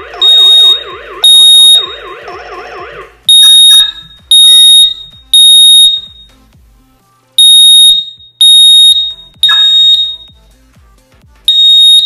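Xiaomi smart smoke detector sounding its alarm, set off by smoke from burning paper: loud, high-pitched beeps in repeating groups of three, with a pause after each group. For the first three seconds a rapidly wavering, warbling tone sounds beneath the beeps, then stops.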